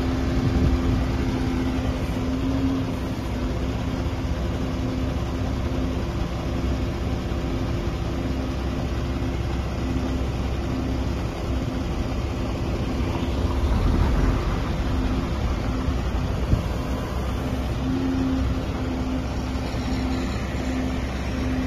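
Truck-mounted crane at work: the truck's engine runs steadily, driving the crane's hydraulics as the boom is raised and extended, giving a low rumble with a steady hum over it.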